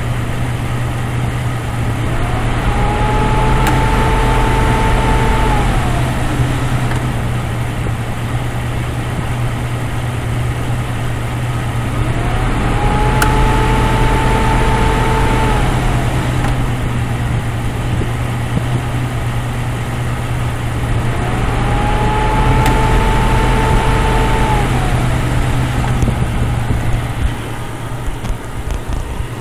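Jeep Cherokee engine idling while its Sanden A/C compressor clutch cycles on and off three times, engaging for about four seconds roughly every ten seconds. Each time a whine rises, holds and falls away and the idle takes on load, with a sharp click in each spell. The short cycling is the sign of a low refrigerant charge.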